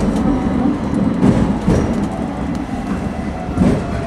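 Hong Kong Tramways double-decker tram No. 173 running along its tracks: a steady low rumble of wheels on rail with a few clacks, and a faint thin whine sliding slowly downward in the second half.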